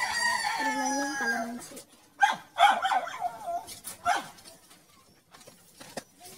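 Domestic animal calls: a long pitched call with a slightly falling pitch lasting about a second and a half, then a burst of short, wavering calls a second later.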